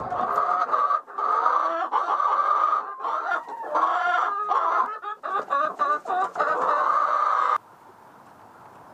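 A flock of hens clucking and squawking loudly and continuously, many calls overlapping, which sounds like hungry birds waiting to be let out and fed. The clamour cuts off suddenly near the end, leaving quiet outdoor ambience.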